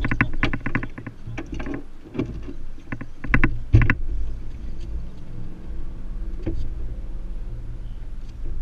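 Fishing reel drag buzzing out in rapid short bursts as a hooked snook pulls line against the bent rod, for about the first four seconds. After that a steady low hum remains, with one sharp click near the end.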